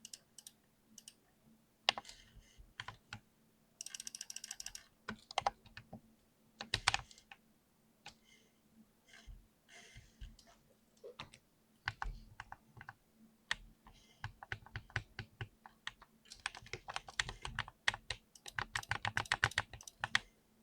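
Keys of a computer keyboard being typed on: scattered single key clicks, a brief rapid rattle about four seconds in, and a fast, dense run of typing near the end.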